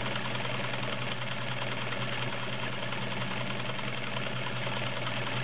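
Vintage Dressmaker SAMB-2 all-metal zigzag sewing machine running steadily, stitching a built-in cam decorative scallop stitch: a steady motor hum with fast needle chatter.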